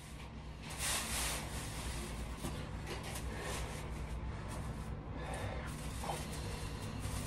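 Broom sweeping a floor: a few brushing swishes of the bristles, over a steady low hum.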